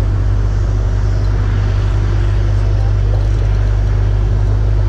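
Steady, loud outdoor rumble with an even hiss over it, unbroken and without distinct events.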